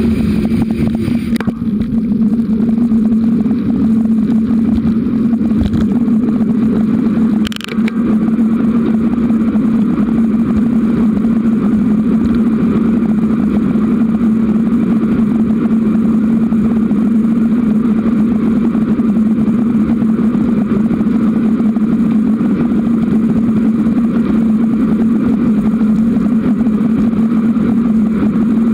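Wind and road rumble on the microphone of a camera riding on a bicycle along a paved path: a loud, steady drone with a low hum in it. About seven and a half seconds in, the level dips briefly with a short click.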